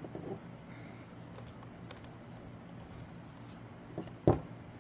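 Small clicks and taps of a screwdriver and tiny screw being handled against the plastic case of a jump starter pack, with one sharp louder knock a little past four seconds in, over a faint steady low hum.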